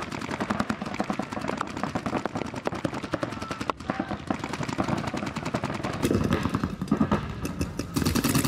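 Paintball markers firing in rapid streams of shots, a fast run of sharp pops that grows louder about six seconds in.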